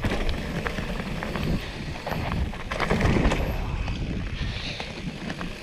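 Mountain bike descending a forest singletrack: tyres rolling over dirt and dry leaves, with knocks and rattles from the bike over bumps and wind on the microphone. It gets loudest about three seconds in.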